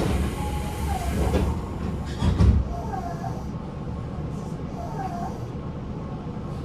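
Train car's doors closing at a station stop: a hiss of air, then a heavy thud about two and a half seconds in as the doors shut. Beneath it the air conditioning runs steadily, and a short tone repeats about every two seconds.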